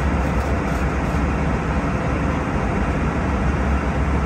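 Steady cabin noise of an Airbus A320 in cruise: an even rush of airflow and engine noise over a deep, constant hum.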